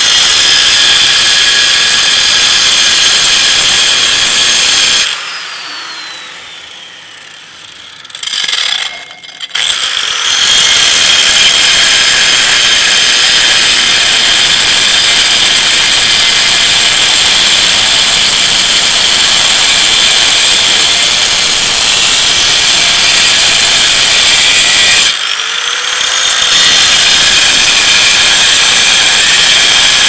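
Angle grinder with a cut-off disc cutting through a steel pedal bracket clamped in a vise, giving a loud, steady, high-pitched whine. It lets off and winds down about five seconds in, with a few short bursts, comes back at full speed about ten seconds in, and pauses briefly again near twenty-five seconds.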